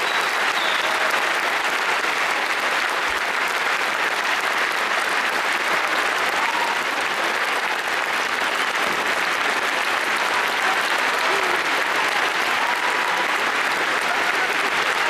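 Large theatre audience applauding steadily, a dense, even clapping that holds at one level throughout.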